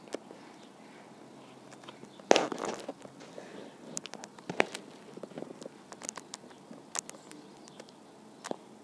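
Scattered sharp clicks and knocks over a low background hush, the loudest knock about two and a half seconds in, followed by a brief rustle.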